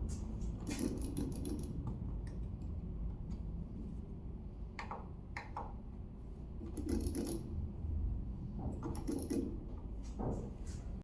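Scattered mechanical clicks and short rattling bursts over a steady low rumble.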